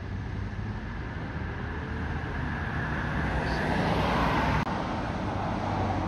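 Road traffic: a passing car's tyre and engine noise swells over a steady low hum, then drops suddenly about two-thirds of the way through.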